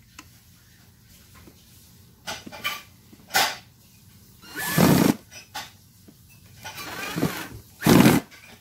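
A dog barking in a series of short, loud barks, starting about two seconds in.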